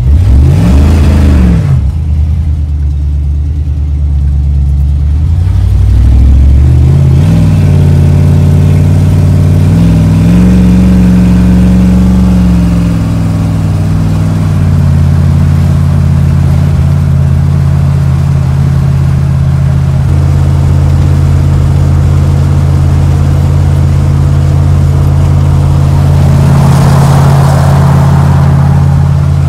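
V8 engine of a Chevrolet S-10 pickup pulling away through the gears of its automatic transmission: the revs climb and drop back at each upshift over the first dozen seconds, then hold steady at cruising speed. A rushing road noise swells near the end as a pickup passes alongside.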